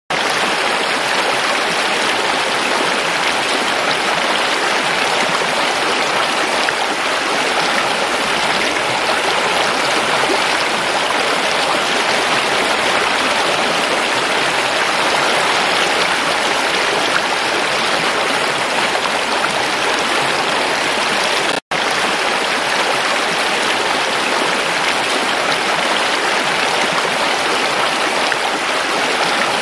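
Shallow rocky stream running and splashing over stones, a steady even rush of water. It cuts out for a split second about two-thirds of the way through.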